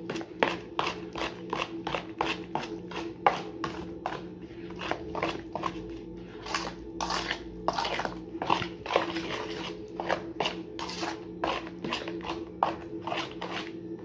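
A spoon stirring a wet paste of blended onion, garlic, herbs, oil and salt in a metal bowl, scraping and squelching in quick repeated strokes, about three a second. A steady low hum runs underneath.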